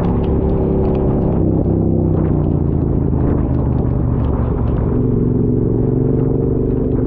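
Motorcycle engine running while riding, under a steady low rumble of wind and road. The engine note shifts in pitch about two seconds in and again about five seconds in.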